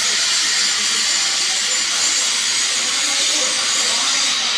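Stick welding arc burning an E7018 electrode, a steady, unbroken hiss.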